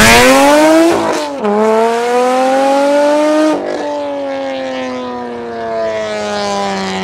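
Toyota MR2's engine accelerating hard away, the pitch climbing and breaking at gear changes about one and a half and three and a half seconds in, then settling into a slowly falling note as the car drives off.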